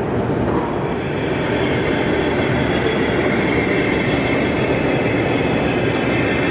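0 gauge model train running along the layout's track, a steady rolling rumble with a thin high whine.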